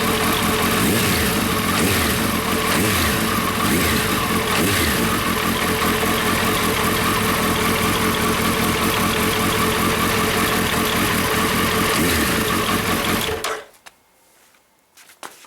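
Suzuki GSX1300R Hayabusa inline-four engine idling steadily after its throttle body has been cleaned and its spark plugs replaced, then shut off near the end, falling suddenly to near silence.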